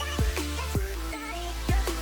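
Background electronic hip-hop beat: heavy bass and punchy drum hits under a melodic synth line.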